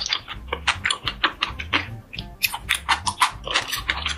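Close-miked eating sounds: chewing with many quick, wet mouth clicks in rapid succession, over soft background music.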